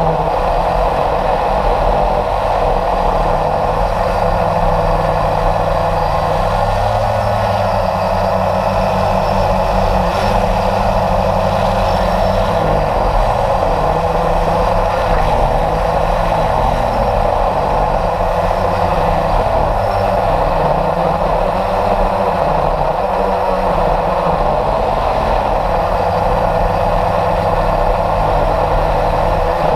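Steady, loud motor noise and air rushing past a radio-controlled model jet in flight, picked up by a camera riding on the plane.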